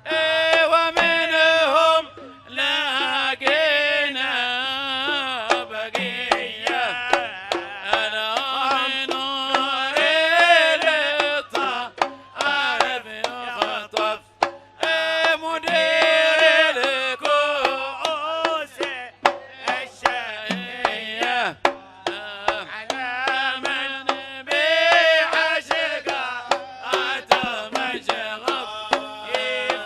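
Live Arabic wedding song: a male singer's ornamented melody with a band and hand drums keeping a steady beat.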